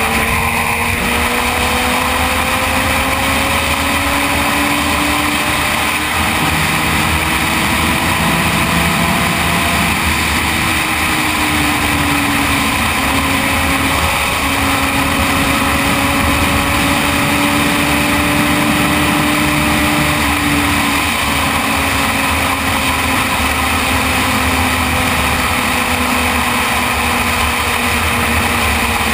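Sport motorcycle's engine running on the move, its pitch slowly rising, dipping, rising again and then easing off as the revs change, over a steady rush of wind and road noise.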